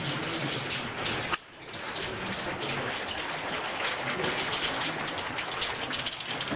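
Heavy storm rain pelting down: a dense steady hiss full of small drop taps. It drops away for a moment about a second and a half in, then comes back.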